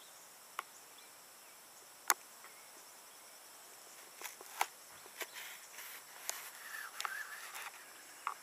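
A 9-week-old Boxer puppy's light footsteps and claw clicks on stone pavers: a couple of single sharp clicks, then a quick run of ticks and taps in the last few seconds as the puppy gets up and walks off, over a faint steady outdoor hiss.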